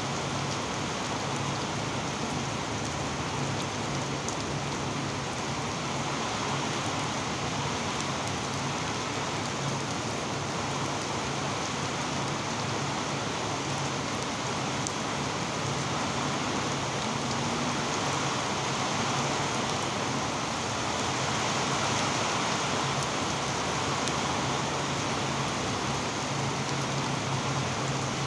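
Steady rain falling, an even constant hiss, with a faint low steady hum underneath.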